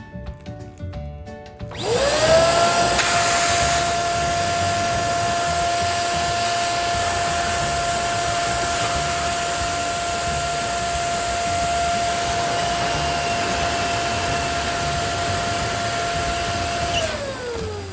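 Electric balloon inflator running: its motor spins up to a steady whine with a rush of air, runs for about fifteen seconds while a balloon is filled, then winds down with falling pitch near the end.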